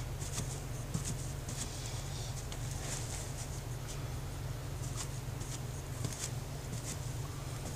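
Sponge dabbing wet setting-type joint compound onto a drywall ceiling for a knockdown texture: soft, irregular pats a few times a second over a steady low hum.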